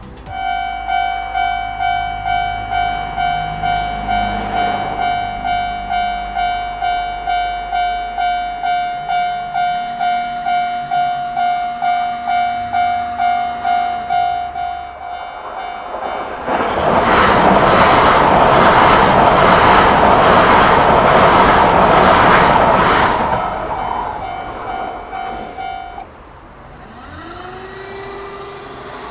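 Railway level-crossing alarm ringing steadily, about two rings a second. About halfway through a train passes through the crossing, loud for about seven seconds. The alarm stops a few seconds after the train has gone.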